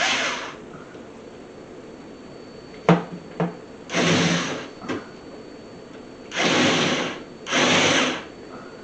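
Power drill driving screws to fix fasteners under a countertop, in three short bursts of under a second each, with a couple of sharp clicks before the first.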